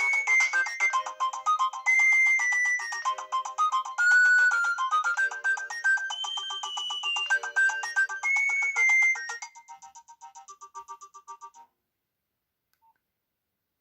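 Nokia 6030 mobile phone playing a polyphonic ringtone melody of quick repeated notes through its loudspeaker. The tune goes quieter about two-thirds of the way in and stops a couple of seconds later.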